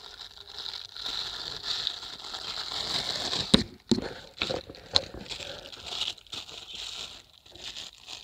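Thin clear plastic bag crinkling and rustling as it is handled and stretched over a small plastic cup, with a few sharp crackles about halfway through.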